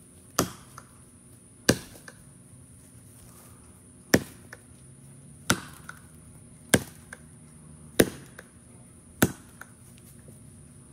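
Double-bit axe (a restored Collins Homestead) striking a tree trunk: seven sharp chops, two, a short pause, then five about a second and a quarter apart. These are test blows to check that the freshly hung head sits tight on its new handle.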